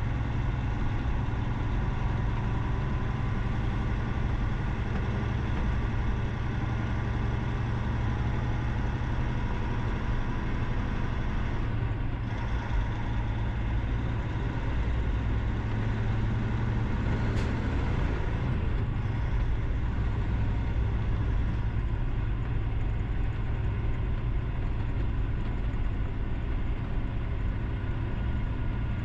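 Steady low drone of a vehicle driving on the highway: engine and road noise that holds level throughout, with a faint brief high chirp about 17 seconds in.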